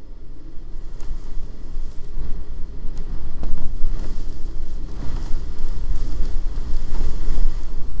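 Blizzard wind of about 120 km/h gusting against the microphone: a heavy, buffeting rumble that builds about two seconds in and stays loud.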